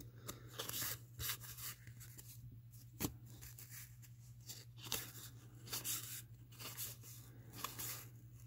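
A stack of 1987 Fleer baseball cards being thumbed through by hand: irregular soft slides, scrapes and flicks of card stock against card stock, over a low steady hum.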